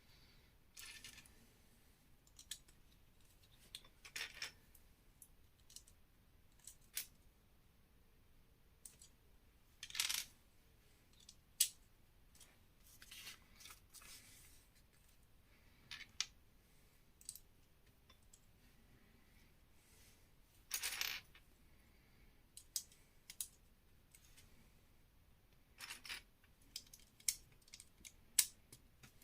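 Lego bricks clicking and clacking as pieces are sorted and snapped together, with a few short rustling bursts from pieces or a bag being handled. The clicks come irregularly, a few seconds apart, with the loudest about ten seconds in, again near the middle and near the end.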